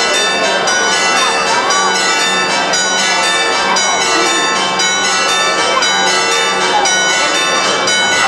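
Church bells pealing continuously, struck several times a second so the ringing overlaps, over the voices of a crowd.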